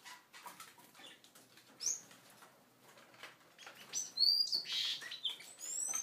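Seagreen parrotfinches calling with short, high-pitched chirps: one about two seconds in, then several more in the second half, over soft clicks and scratches of birds moving about the cage.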